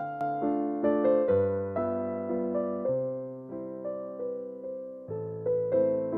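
Background music: slow piano chords and melody notes, each struck and left to fade before the next.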